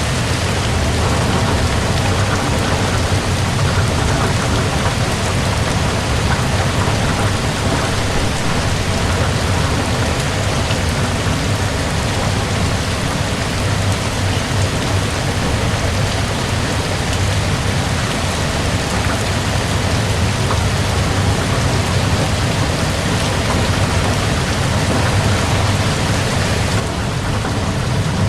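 Heavy rain pouring steadily, a dense, even hiss with a deep rumble underneath.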